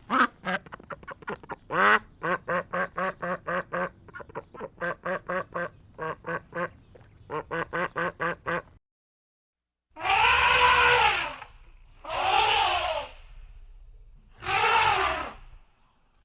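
Ducks quacking in quick, repeated series of short calls, then after a short pause three longer, harsher calls of about a second each.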